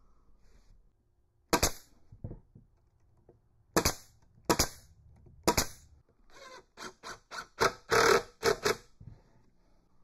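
A DeWalt 18-gauge pneumatic finish stapler fires four staples into the pine hive-box joint, each a sharp crack with a short hiss of air. Then a cordless drill-driver runs in a string of short bursts, driving a screw into the box corner.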